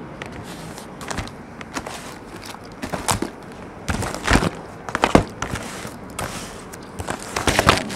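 Shrink-wrapped cardboard baseball card boxes being set down and stacked on a table: a series of irregular knocks and taps, a few of them sharper and louder.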